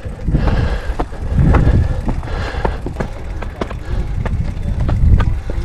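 Wind buffeting an action-camera microphone in uneven gusts of rumble, with scattered clicks and knocks from a mountain bike rattling over a rough, stony climb.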